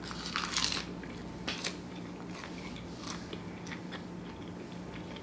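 A person bites into a sheet of nori wrapped around vegan sushi bake and chews it. A cluster of crisp crunches in the first second is the loudest part, followed by scattered softer chewing clicks.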